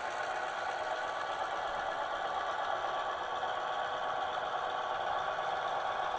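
Model diesel locomotive running slowly with its train, giving a steady mechanical drone with several steady tones in it.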